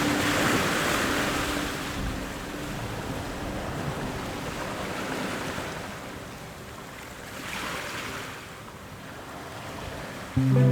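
Sea waves washing in slow swells, a rushing noise that rises and falls several times. A sustained musical tone starts abruptly right at the end.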